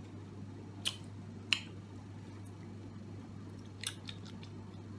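Kissing and lip smacking: a few short, wet mouth clicks, about a second in, again half a second later and once more near the end, over a steady low hum.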